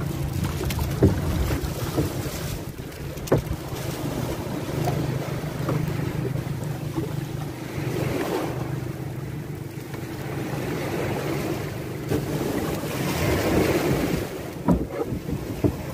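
Sea water sloshing and slapping against a small wooden outrigger boat as it rocks on the swell, with wind buffeting the microphone. A low steady drone runs under the first half, and a few sharp knocks sound on the boat.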